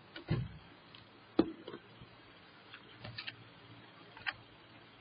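A few scattered short clicks and soft knocks in a quiet small room, the sharpest about one and a half seconds in, with a small cluster around three seconds and one more near the end.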